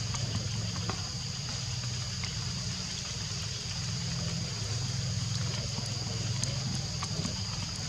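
Steady outdoor background: a constant low hum under a steady high-pitched drone, with a few faint ticks.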